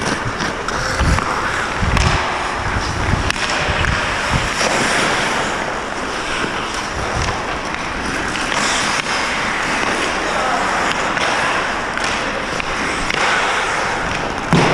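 Ice hockey skate blades scraping and carving on the ice close to a helmet-mounted camera, with a few sharp knocks and low thumps in the first few seconds.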